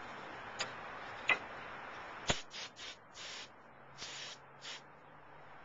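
Three sharp clicks, then about five short hissing bursts from an aerosol can of brake parts cleaner being sprayed.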